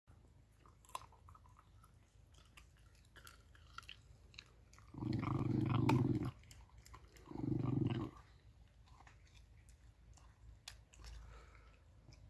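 Small dog gnawing a bone, with scattered crunches and clicks, and two low growls over the bone, about five and seven seconds in. The growls are the loudest sounds.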